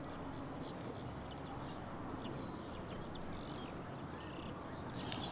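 Outdoor ambience: a steady low background hum with many small birds chirping throughout, and a brief click near the end.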